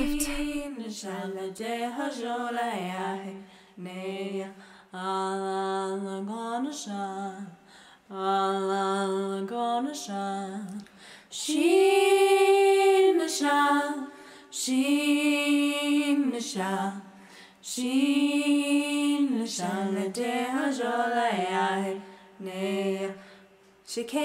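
A woman singing unaccompanied, a slow song in short phrases with held notes. The loudest is a higher held note about halfway through.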